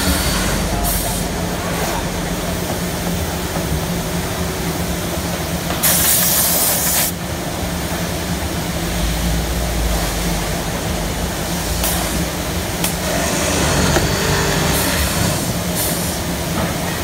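Automatic chair-seat-frame drilling machine running: its drill motors hum steadily, with a loud hiss of compressed air for about a second, six seconds in, as the pneumatic cylinders work, and a few sharp clicks later on.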